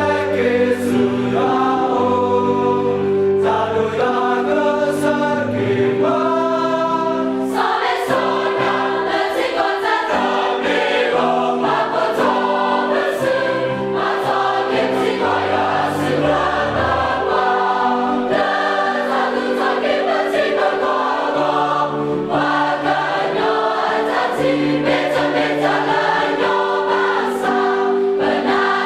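A choir singing a gospel song in parts, with instrumental backing: held chords, a moving bass line and light percussion ticks.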